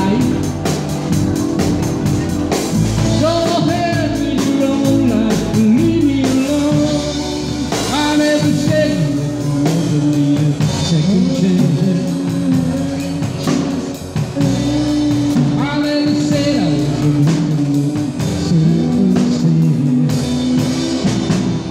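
Live band performing: a singer over guitar and a drum kit.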